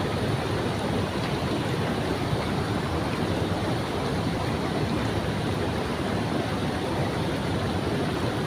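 Running stream water, a steady, even rush close by.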